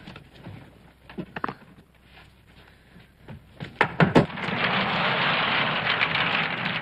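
A few faint knocks, then two or three sharper knocks about four seconds in, followed by a steady rushing noise as a revolving bookcase swings round on its pivot.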